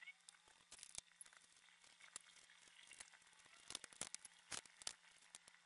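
Faint scratching and tapping of a stylus nib on a Wacom Intuos3 graphics tablet as sketch lines are drawn: short, irregular strokes, with a busier run about four seconds in, over a faint low hum.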